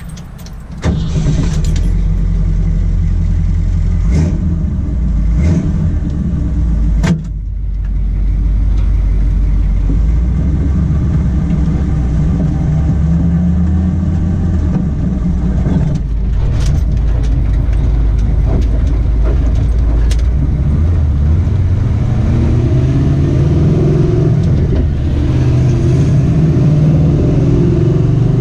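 1979 Jeep CJ7's AMC 360 V8 heard from the driver's seat, running loud. It comes up sharply about a second in, with a few short knocks along the way, then rises in pitch near the end as the Jeep accelerates away.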